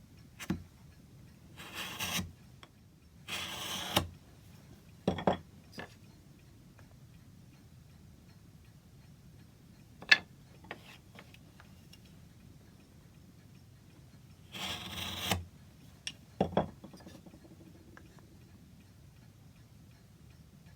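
Hand work on a carved wooden piece: a few short scraping strokes on the wood, each under a second, and several sharp knocks of tools or wood on the bench, the loudest about ten seconds in.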